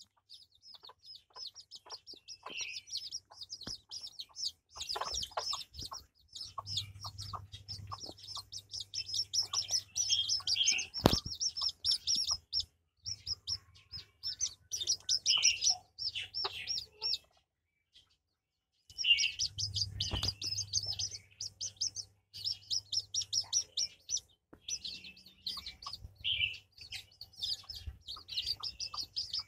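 Chicks peeping constantly in rapid, high-pitched calls, with a brooding hen clucking now and then. A single sharp click sounds about eleven seconds in, and the peeping breaks off for about a second just past the middle.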